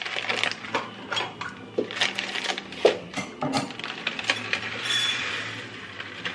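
Uncooked rice from a meal-kit bag being handled and tipped out: a string of small irregular clicks and rattles, with a rustling pour about five seconds in.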